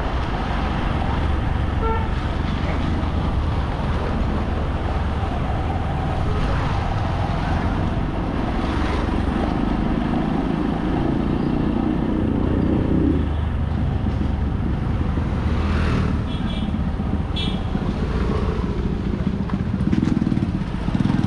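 Motorcycle engine running steadily while under way, with wind and road noise; a few brief horn toots near the end.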